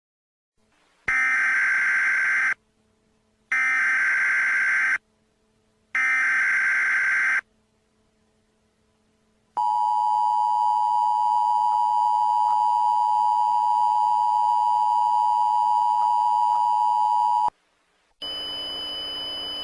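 Emergency Alert System tones: three bursts of SAME header data, each a raspy electronic screech about a second and a half long with about a second between them. Then comes the two-tone attention signal, a steady dual tone held for about eight seconds. A quieter steady buzzing tone starts just before the end.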